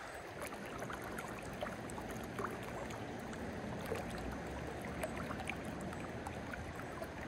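Creek water running steadily, with faint scattered trickles and small splashes.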